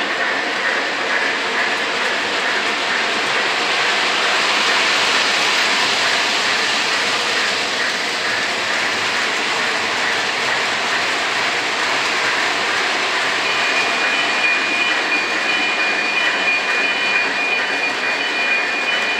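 O gauge model trains rolling around three-rail track, a steady rolling rumble of wheels on the rails. About two-thirds of the way through, a steady high tone joins in, with a second, broken tone above it.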